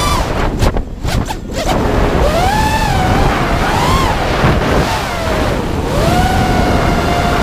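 Brushless motors and propellers of an FPV racing quadcopter, heard through its onboard camera, whining and rising and falling in pitch with throttle over a rush of wind. The whine drops out briefly about a second in, then returns and settles to a steady pitch near the end.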